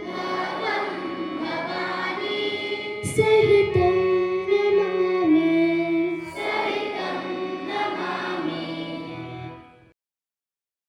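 A group of school children singing together in long held notes. The song ends and the sound stops abruptly about ten seconds in.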